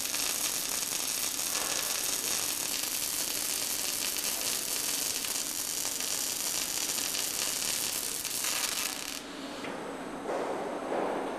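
Robotic welding arc crackling steadily as the torch runs along the seam of a steel pipe end, cutting off about nine seconds in; a brief louder noise follows near the end.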